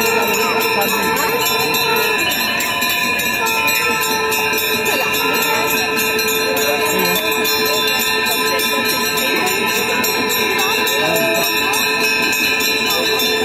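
Several conch shells (shankh) blown together in long, steady held notes, over continuous fast ringing of hand bells.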